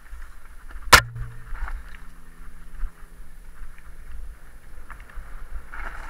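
Mountain bike riding over a dirt singletrack: tyre noise and the bike's rattling over the rough ground, with low wind rumble on the microphone. One sharp knock about a second in is the loudest sound.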